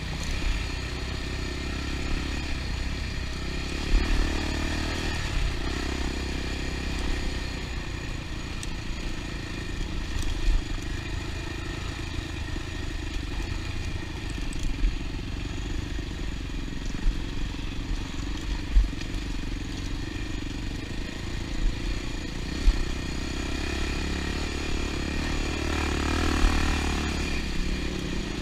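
Honda XR250 dirt bike's single-cylinder four-stroke engine running as the bike is ridden along a rough dirt trail on a flat rear tire, with frequent knocks and rattles from the bumps. The engine picks up briefly a few seconds in and again near the end.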